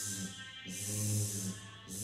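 A man's voice holding a long buzzing 'zzz', the English Z sound: a hiss over a steady hum of the vibrating vocal cords, which is what sets it apart from an S. One ends just after the start, another is held for about a second in the middle, and a third begins at the end.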